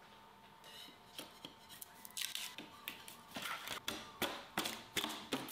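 Hard 3D-printed plastic parts being handled and fitted together by hand as a go-kart seat goes onto its frame: an irregular run of clicks, knocks and short scrapes that starts about a second in and gets busier towards the end.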